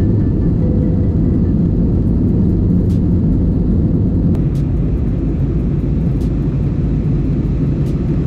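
Jet airliner cabin noise during the climb after takeoff: a loud, steady roar of the engines and rushing air, heard from a window seat beside the wing.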